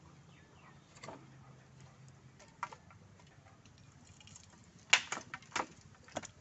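Wooden handloom being worked by hand: scattered sharp wooden clicks, then a quick cluster of louder knocks about five seconds in and a couple more just after.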